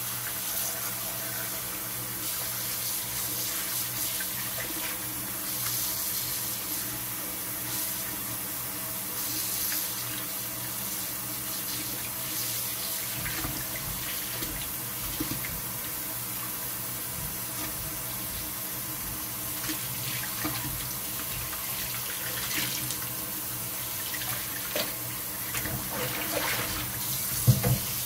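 Kitchen tap running steadily into a glass bowl in a stainless steel sink while hands knead and squeeze seitan dough in the water, washing the starch out. There are light splashes throughout and a couple of sharp knocks near the end.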